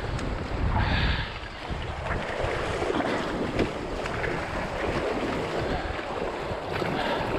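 River water rushing and splashing around a small raft, with wind buffeting the camera microphone; louder for a moment about a second in.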